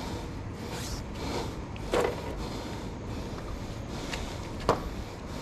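Two sharp clicks a little under three seconds apart, the second the louder, over a steady low rumble.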